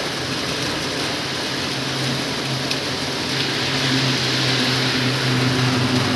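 Heavy rain falling steadily, an even hiss, with a steady low hum that comes in about two seconds in.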